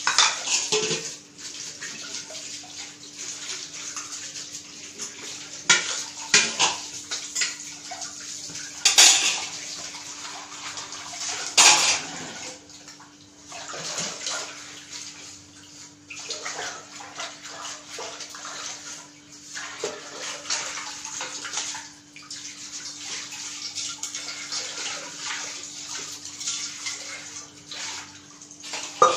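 Pot of drumstick sambar boiling under its lid, bubbling and spluttering unevenly with a few louder flare-ups, over a steady low hum.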